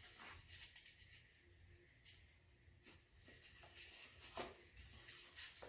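Near silence with a few faint, scattered rustles and light taps from hands handling plastic-wrapped artificial flowers and greenery.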